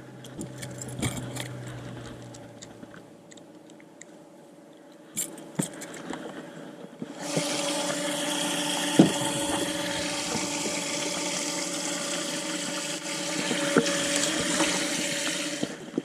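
Scattered light clicks and clatter, then about seven seconds in a steady rush of water with a low motor hum under it starts, and it cuts off suddenly near the end.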